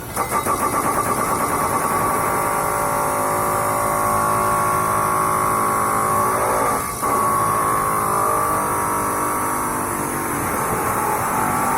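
Eibenstock electric chop saw motor coming up to speed and running with a steady whine. Its level drops for a moment about seven seconds in, then comes straight back.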